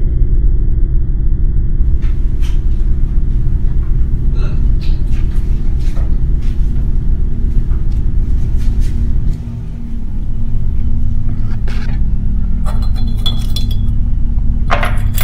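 A loud, steady low drone with a brief dip about nine seconds in, under scattered light clicks and clinks. The clinks are loudest near the end, as pencils knock against a ceramic mug.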